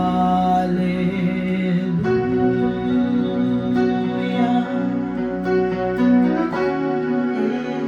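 Slow worship music played on instruments, with long held chords.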